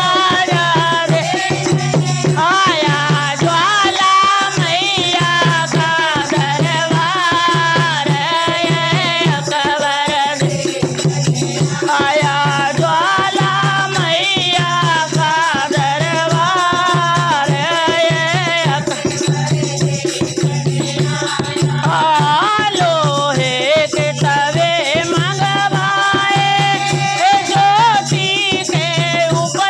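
Women singing a Hindu devotional bhajan in chorus, with a hand-played dholak drum keeping a steady beat and hand claps along with it.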